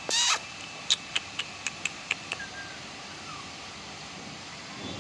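Toy Pomeranian puppy gives one short, high yip, followed by a quick run of about seven sharp clicks.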